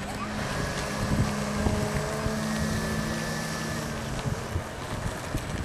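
Radio-controlled model jet's motor running steadily as it taxis, a continuous hum with a faint higher whine.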